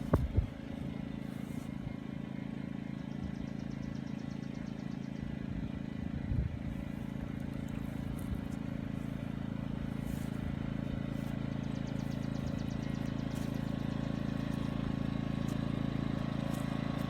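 Small portable gasoline generator running at a steady speed, an even, unchanging hum. A couple of brief knocks come right at the start and again about six seconds in.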